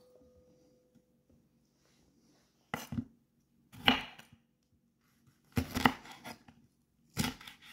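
Kitchen knife slicing jalapeño peppers on a wooden cutting board: four short runs of chopping strokes, beginning about three seconds in, the second the loudest.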